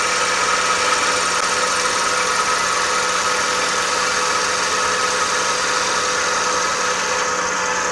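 Wood lathe running with a turning tool cutting the spinning wood: a steady hissing cut over the lathe's steady motor hum, unchanged throughout.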